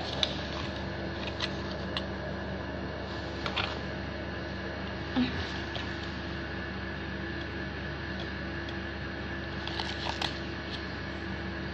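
Steady background hum, with a few faint taps and rustles as small objects are picked up and set down.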